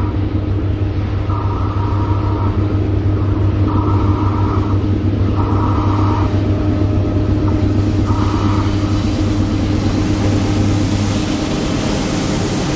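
Diesel freight locomotives running under load with a heavy train, a steady low engine drone that eases a little near the end.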